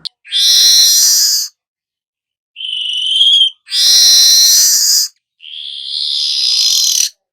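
Manyar (weaver bird) calling: four loud, harsh hissing calls, each about a second long with short silences between. The second is a thinner, higher trill, and the last one trails off lower near the end.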